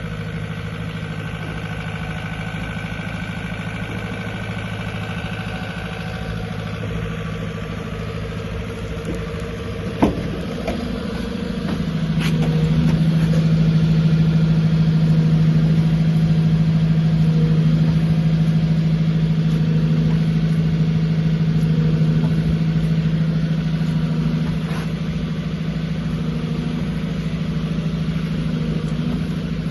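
JCB 86C-1 midi excavator's diesel engine idling steadily. About ten seconds in there is a sharp knock, then the engine speeds up to a higher, louder steady run, easing off slightly near the end.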